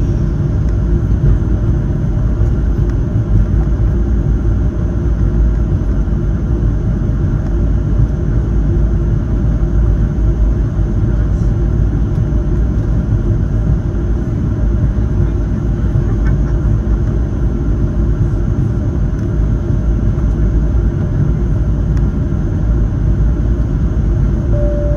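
Steady low rumble and hum inside the cabin of a Boeing 737-700 on the ground before takeoff, with no change in engine power. A short chime tone sounds at the very end.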